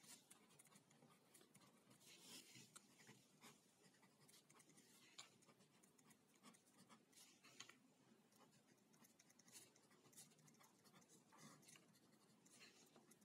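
Faint scratching of a pen writing on a sheet of paper in short, irregular strokes as figures and a formula are written out.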